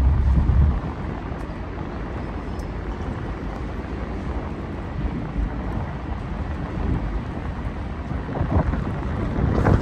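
Wind buffeting the microphone as a steady low rumble, with a heavier gust in the first second and more gusty buffeting near the end.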